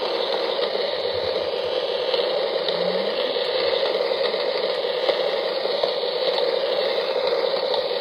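Steady rain: an even hiss of falling drops.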